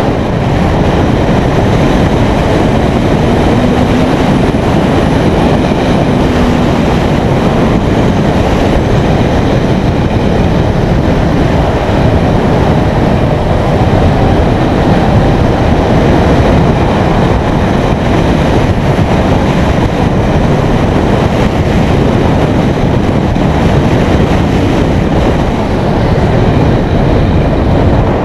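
Steady rush of wind and road noise on the riding motorcycle's camera microphone. The Honda CB650F's inline-four engine is faintly underneath, now and then gliding in pitch.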